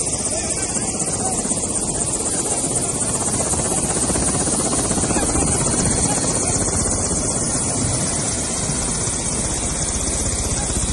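Bell 407 helicopter running on the ground, its engine and rotor making a steady, loud noise with a strong high-pitched hiss.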